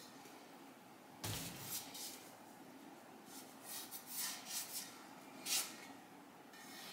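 Objects being handled on a workbench: a dull thump about a second in, then a scattered run of short clicks and knocks.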